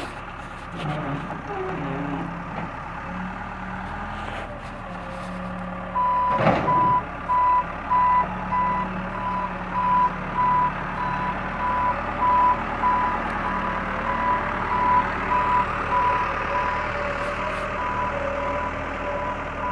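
Backhoe's diesel engine running, its reversing alarm beeping about one and a half times a second from about six seconds in as the machine backs up. A single sharp knock sounds just after the beeping starts.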